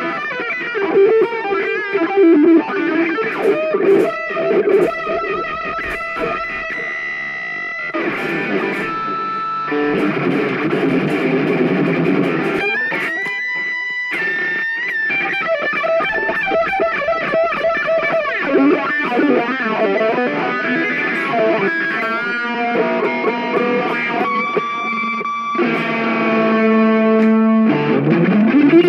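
Electric guitar solo on Stratocaster-style guitars: held notes with vibrato alternate with fast runs, broken by short pauses, and a long slide upward in pitch comes right at the end.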